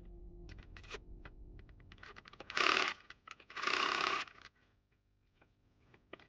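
Handling of a jacket and its zipper: light scattered clicks and taps, with two short loud rustling sweeps close together near the middle.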